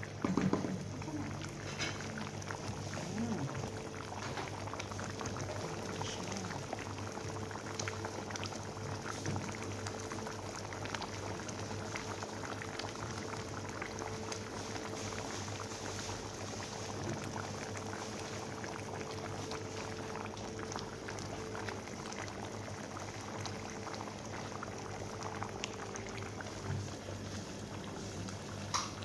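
Pot of biryani rice and meat in stock boiling on a gas burner: a steady bubbling with many small pops, over a steady low hum.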